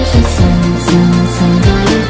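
Instrumental pop music with a steady beat: a held bass line, a repeating pattern of short keyboard notes and regular drum hits.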